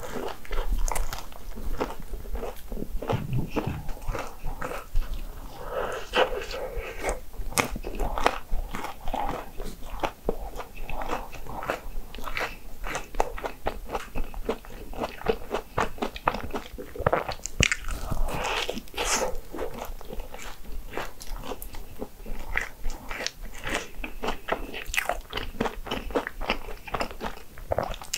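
A person biting and chewing Hong Kong egg waffle, a close run of crisp crunching clicks.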